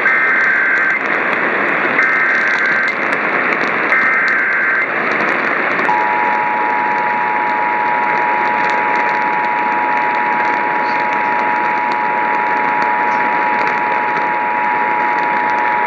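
Emergency Alert System activation received over a radio with heavy static: three short bursts of the SAME header's screeching data tones, each about a second long and two seconds apart, then the steady two-tone EAS attention signal held for about ten seconds.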